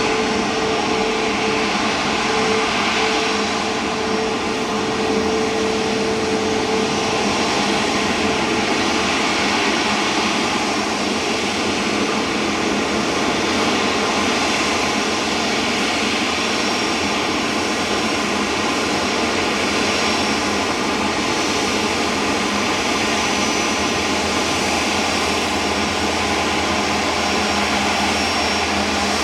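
Airbus A350-900 jet engines running steadily, an even noise with a few steady whining tones. One mid-pitched tone fades out about seven seconds in.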